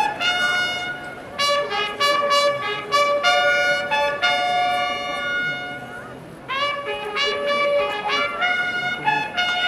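Trumpets playing a brass fanfare: a run of short and long held notes, with a brief break about six seconds in.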